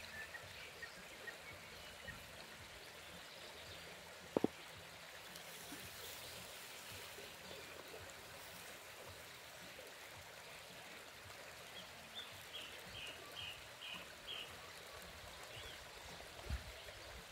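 Steady low hiss of a campfire's embers under a leg of lamb grilling on a wire rack, with one sharp pop about four seconds in. Near the end a bird chirps a quick run of short notes.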